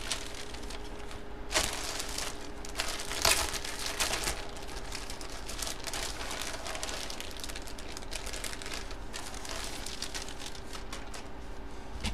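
Clear plastic bag crinkling as it is handled and opened, with louder rustles in the first few seconds, over a faint steady hum.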